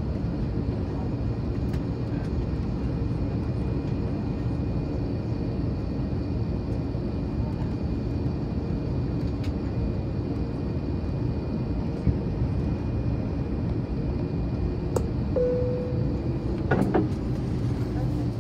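Steady low cabin rumble of an Airbus A321 taxiing slowly on its idling jet engines, with a faint steady whine above it. Near the end a brief low tone sounds, followed by a few sharp clicks.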